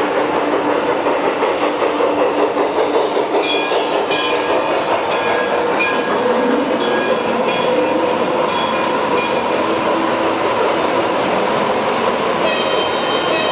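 Garden-scale model trains running on a large exhibition layout: a steady rumble and clatter of wheels on track over general hall noise. A series of short, high tones repeats about once a second from a few seconds in, and again near the end.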